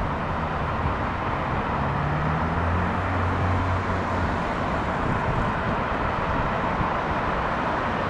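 Steady rushing noise of a Boeing 737-700's CFM56 jet engines as the airliner lands.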